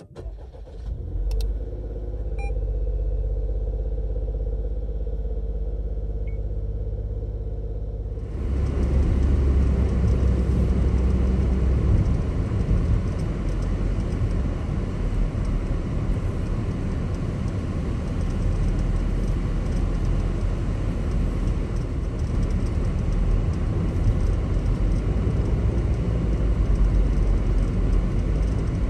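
Daihatsu Taft kei SUV on a snowy road: a steady low engine hum at first, then, about eight seconds in, a louder continuous rumble of tyre and road noise sets in and holds.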